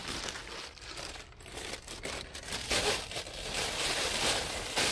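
Thin plastic shopping bag crinkling and rustling continuously as it is handled and stuffed away with a coil of steel cable inside, loudest about three seconds in and near the end.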